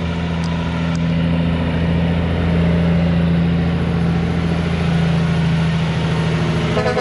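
Heavy diesel engine of an approaching tractor-trailer running steadily with a deep, constant drone. Near the end an air horn starts to blow.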